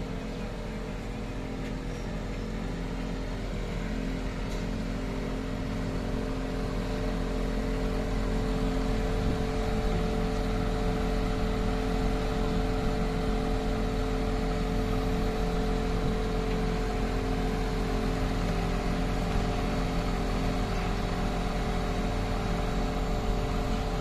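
MAN truck's diesel engine running steadily to drive the hydraulics of a Schwing Stetter S36X concrete boom pump as the boom folds down. It grows louder over the first several seconds, then holds steady.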